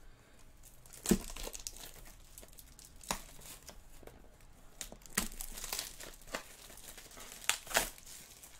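Plastic shrink wrap being torn off a trading-card box and crumpled in the hand: a run of sharp crinkling crackles, loudest about a second in and twice near the end.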